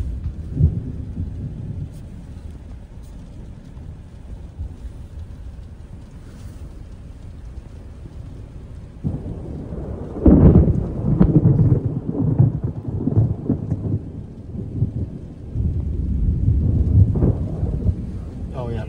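Thunder from a supercell rumbling low and continuously, with a louder long roll starting about nine to ten seconds in and another about fifteen seconds in.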